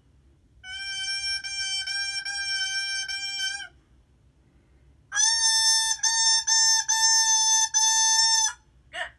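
A bassoon reed blown on its own without the instrument: a buzzy 'crow' held on one pitch. It sounds twice, each time as a string of short notes separated by brief tongued breaks. The second crow, after a pause of about a second and a half, is louder and slightly higher.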